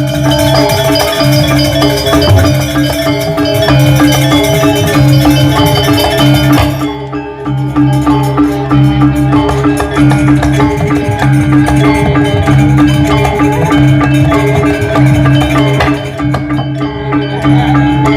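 Balinese gamelan music accompanying a Barong dance: bronze metallophones play fast repeated notes over low sustained tones. The music briefly drops in loudness about seven seconds in.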